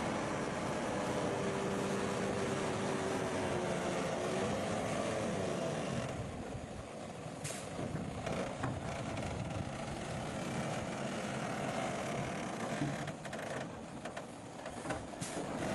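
Komatsu bulldozer's diesel engine running under load, its pitch shifting, then easing off about six seconds in, with a few sharp clanks afterwards.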